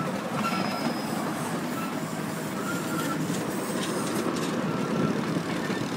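A 7¼-inch gauge ride-on miniature train rolling steadily along the track, with short thin wheel squeals coming and going and a few sharp clicks from the wheels over rail joints and points about halfway through.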